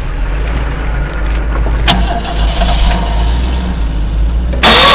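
Rock-crawling Jeep's engine running steadily as the Jeep climbs over rocks on big off-road tyres. There is a sharp knock about two seconds in, and a loud brief burst of noise just before the end.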